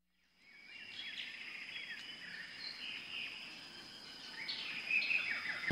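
Tropical forest ambience fading in: several birds chirping and whistling in overlapping calls over a steady, high-pitched insect drone.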